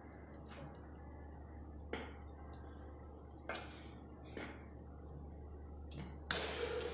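A kitchen knife and fingers working sticky dates in a steel bowl: a handful of light clicks and taps about a second apart as pits are cut out and pieces are put on a steel plate, with a brief rustle near the end.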